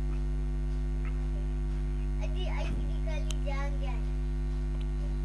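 Steady electrical mains hum at about 50 Hz, holding an even level throughout.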